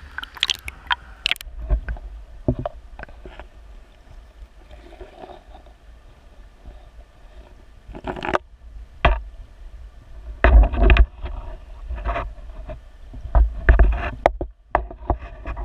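Creek water and irregular knocks and thuds heard through a GoPro Hero2 held underwater in its waterproof housing, over a steady low rumble; the knocks come in loud clusters about eight seconds in and again from about ten seconds on.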